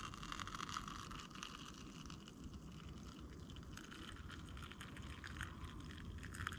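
Hot coffee poured from a Trangia coffee kettle into a small cup in a steady trickling stream. Near the end the stream turns to a few separate splashes and drips.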